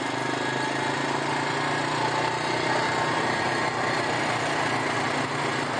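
ATV (four-wheeler) engine running steadily at a slow crawl, a constant hum with no revving.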